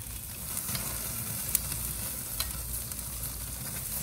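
Butter sauce sizzling on a hot charcoal grill as it is spooned onto oysters in their half shells, a steady hiss with scattered sharp pops.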